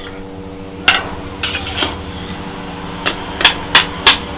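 Hammer blows on a steel knife blade: one sharp ringing strike about a second in and two lighter ones soon after. From about three seconds in comes a steady run of about three strikes a second. A steady low hum runs underneath.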